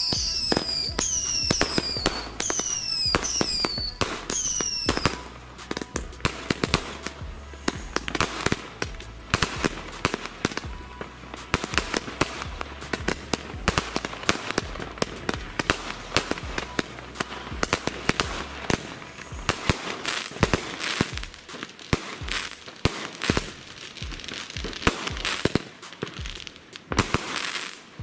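Weco Kopernikus 86-shot, 15 mm firework cake firing: a rapid, dense run of sharp launch pops and crackling bursts. Background music fades out in the first few seconds.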